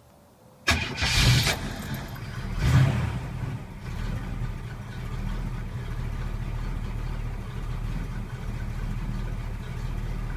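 1964 Chevy Nova's 307 small-block V8, with a four-barrel Edelbrock carburettor and dual exhaust, starting up after sitting unused for a while. It catches suddenly just under a second in, surges twice in the first three seconds, then settles into a steady idle.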